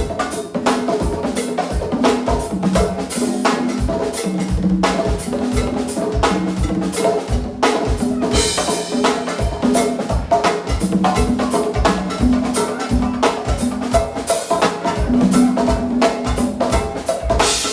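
Live go-go band playing a drum-heavy groove: drum kit with kick and rimshot snare hits, many to the second, over held bass and keyboard notes.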